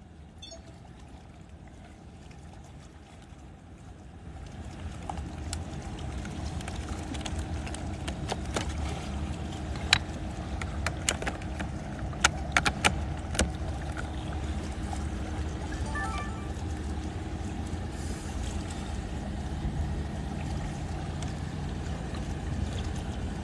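A motor engine's low rumble fades in about four seconds in and runs on steadily, with a run of sharp clicks near the middle.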